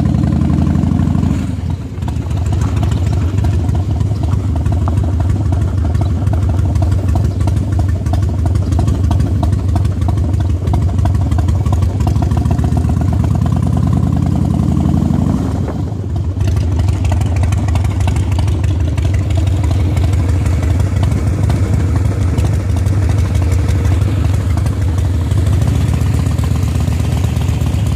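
Motorcycle engine running while riding, with wind on the microphone. The engine note falls at the start and then climbs steadily as the bike accelerates, dropping back sharply about halfway through before running on evenly.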